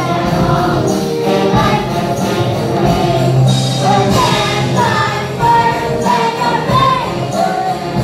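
A choir singing over loud backing music for a stage musical number, the voices moving between held notes.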